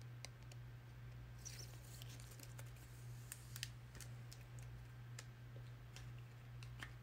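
Faint, irregular light clicks and taps over a steady low hum, with a brief rustle about a second and a half in.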